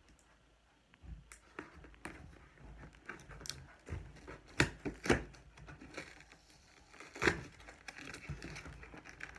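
Cardboard toy box being pulled and forced open by hand: scattered crinkling, scraping and tearing of cardboard and packaging, with a few sharp snaps about halfway through and another a little later, as the box gives way.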